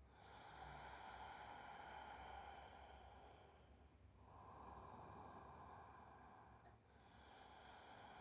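Faint, slow, deep breathing: about three long breaths of roughly two to three seconds each, drawn through a held yoga pose.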